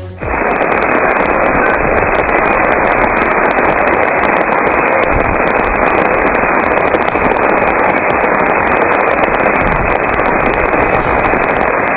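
Heavy rain pouring down in gusting wind, a dense steady hiss that starts abruptly.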